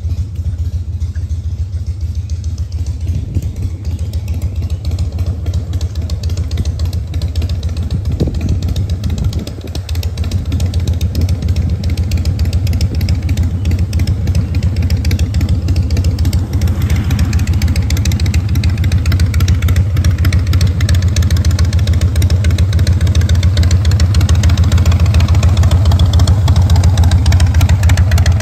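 Harley-Davidson Breakout's V-twin engine idling steadily with a low, even beat, growing louder from about ten seconds in.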